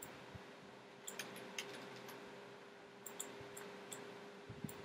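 Computer mouse clicking: several short sharp clicks scattered over a few seconds, some in quick pairs, over a faint steady hum.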